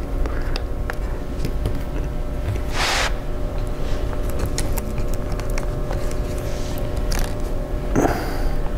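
Small clicks and taps of laptop parts and screws being handled and fitted during reassembly, with a short scraping rustle about three seconds in and another near the end, over a steady low hum.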